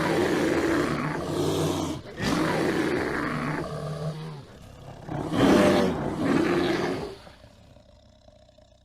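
A large animal giving three loud, deep roaring calls in a row, the last one fading away.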